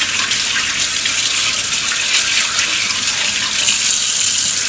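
Kitchen tap running steadily, the stream splashing onto a plastic computer-mouse cover held and rubbed under it in the sink.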